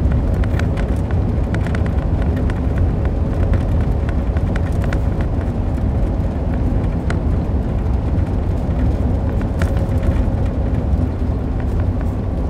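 Semi-truck on the move: a steady low rumble of engine and road noise, with scattered light clicks and rattles over it.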